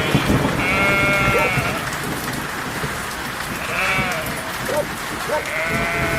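Sheep bleating three times over the steady patter of rain.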